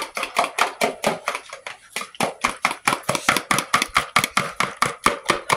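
Egg whites being beaten by hand in a bowl, the utensil striking the bowl in a fast, steady rhythm of about five to six strokes a second as the whites are whipped to a froth before the yolks go in.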